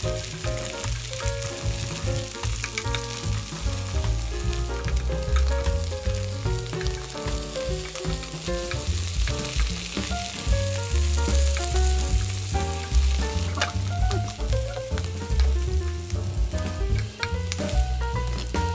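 Egg-battered perilla-leaf and lotus-root pancakes sizzling steadily in cooking oil in a frying pan.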